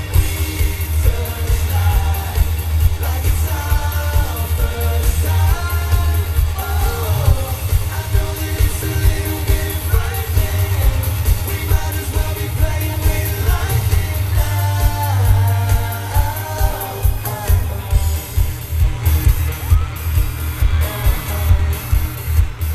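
Live pop music played by a boy band and backing band, heard from the audience: male group vocals over a heavy, steady bass beat with keyboards and electric guitar, and some yelling from the crowd. Past the middle the singing drops back and the beat carries on as an instrumental stretch.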